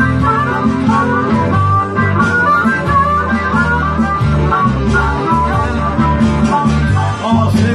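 Harmonica played into a handheld microphone, running quick melodic phrases over electric guitar through a Marshall amplifier.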